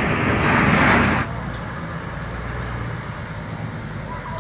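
Bus engine and road noise: a louder rush for about the first second, then a steady low engine drone.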